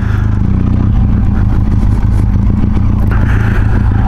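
Benelli TRK 502X's 500 cc parallel-twin engine running steadily as the motorcycle rides along a dirt track, heard from on the bike.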